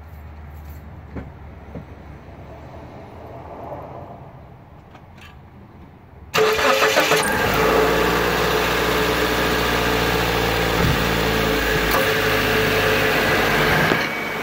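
2003 Mazda Protege's engine starting with a sudden catch about six seconds in, after a few seconds of faint hum and light clicks, then idling steadily.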